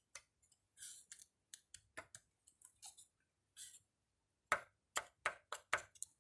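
Scattered light metallic clicks and taps, then about five sharper clicks in quick succession in the last couple of seconds: worn pistons from a Toyota 1G six-cylinder engine being handled and tilted on the bench.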